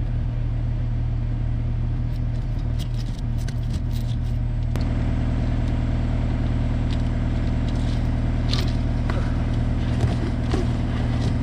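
Heavy equipment engine running steadily, its note growing fuller about five seconds in, with a few light clicks and knocks over it.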